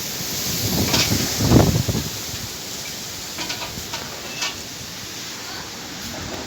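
Storm wind and rain as a steady rushing noise, with a low rumble swelling about a second and a half in, and a few light knocks a little later.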